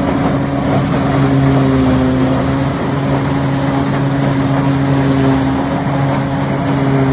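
Wheeled corn silage harvester running steadily, its engine giving a constant low hum over a dense mechanical rush.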